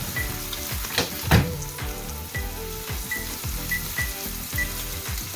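A ribeye steak sizzling as it sears on its second side in a hot cast iron skillet, building the crust. A couple of sharp knocks come about a second in, with background music under the sizzle.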